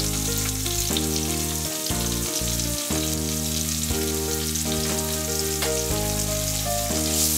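Sliced onions sizzling in hot mustard oil in a wok, just added to the pan with whole spices, a steady frying hiss. Soft background music with held notes plays underneath.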